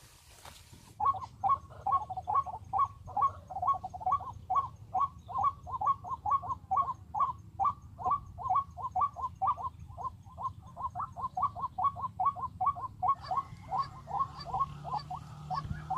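A bird calling over and over in quick, even succession, about three or four short calls a second. The calls start abruptly about a second in and keep going without a break.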